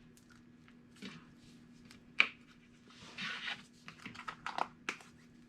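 Slime being squeezed and worked in the hands, giving scattered sharp little clicks and pops, a short crackling squelch a little after three seconds in, and a quick run of clicks near the end.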